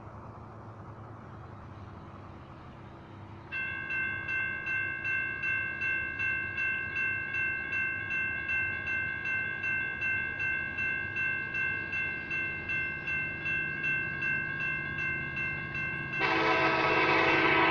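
Railroad crossing electronic bells (General Signals type) start ringing a few seconds in, a pulsing, multi-pitched ding repeating about twice a second as the crossing activates for an approaching train. Near the end, the locomotive horn of the oncoming freight train comes in, much louder, over the bells.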